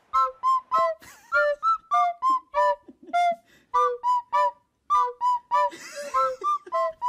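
Background music: a bouncy melody of short, separate notes, about three a second, with brief pauses between phrases.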